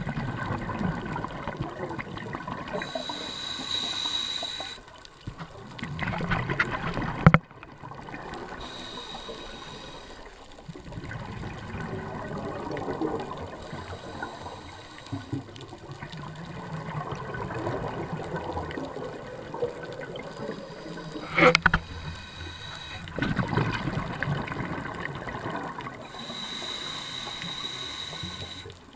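Scuba diver breathing through a regulator underwater: inhalations with a thin high hiss alternate with the rush of exhaled bubbles, over a few breath cycles. Two sharp knocks, about 7 and 21 seconds in.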